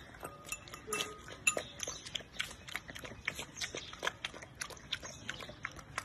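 Pit bull puppy with its muzzle in a bowl, its mouth making quick, irregular wet smacks and clicks as it feeds.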